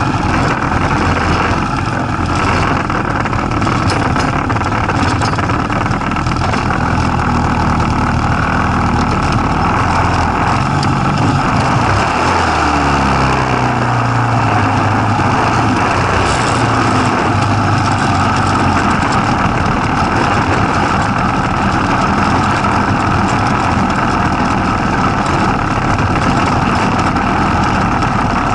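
Go-kart's Tecumseh small engine running loudly under way, with a steady noisy rush. About halfway through, its pitch slides and shifts as the throttle changes.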